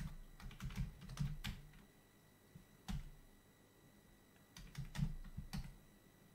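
Keystrokes on a Commodore 64 keyboard as commands are typed in: a quick run of key clacks in the first second and a half, a single key about three seconds in, and another short run near five seconds.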